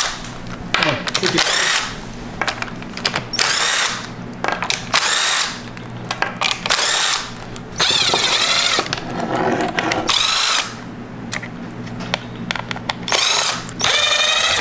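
Cordless Hitachi impact driver running in about a dozen short bursts, each under a second with brief pauses between, spinning the fasteners off the bus-bar end plate of a Honda Civic Hybrid NiMH battery pack.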